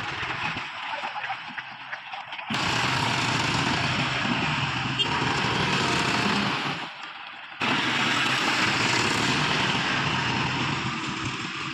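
Heavy vehicle engine running, noisy and steady, in edited segments that cut in abruptly about two and a half seconds in and again about seven and a half seconds in, with a short quieter stretch just before the second cut.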